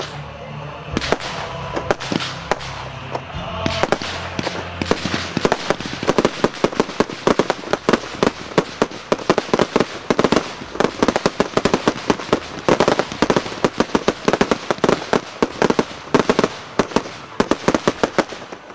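Aerial fireworks bursting: a few separate bangs at first, then from about four seconds in a dense barrage of many sharp bangs a second.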